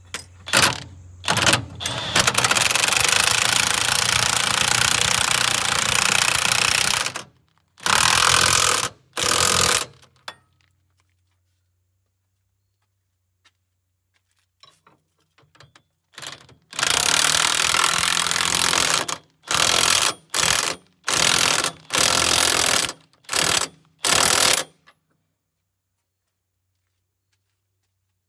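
DeWalt cordless impact wrench hammering a fastener in bursts: one run of several seconds, a shorter one, then after a pause another long run followed by a string of short blips near the end.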